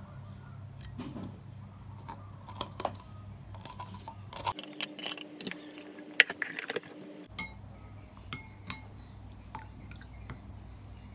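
Scattered light clinks and taps of tableware and dishes, busiest in the middle, over a low steady hum that drops out for a few seconds midway.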